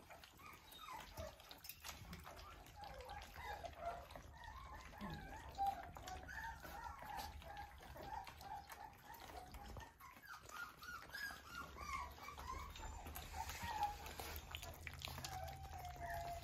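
A litter of Australian Shepherd puppies whimpering and squeaking in many short, high, wavering chirps while eating their first meal from a stainless-steel ring feeder, with small clicks and lapping among them.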